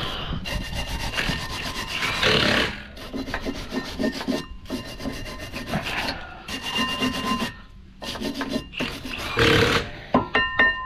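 Repeated hand scraping and rubbing of metal on a car's rear brake caliper assembly, in uneven strokes, with a few sharp metal clinks that ring briefly near the end.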